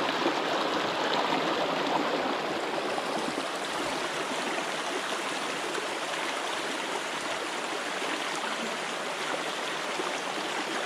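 Small shallow creek running over rocks, a steady even rush of water.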